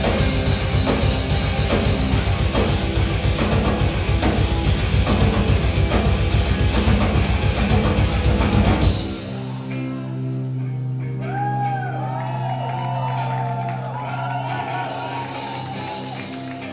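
Indie rock band playing live, loud drums and guitars; about nine seconds in the full band stops suddenly, leaving a held low note with a voice singing over it.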